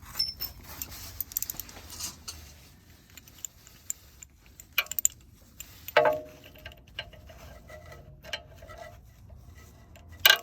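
Irregular light metallic clicks and taps of hand tools on a rusted Torx T50 bolt as it is worked out of a front hub's lower ball joint, with one louder ringing clink of metal about six seconds in.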